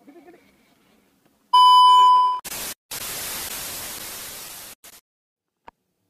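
Electronic transition sound effect: a loud steady beep for about a second, then static hiss that comes in a short burst and then runs for about two seconds before cutting off suddenly. A single click near the end.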